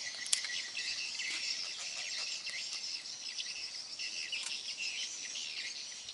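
Steady, high-pitched chorus of insects with many short bird-like chirps scattered through it, and one sharp click shortly after the start.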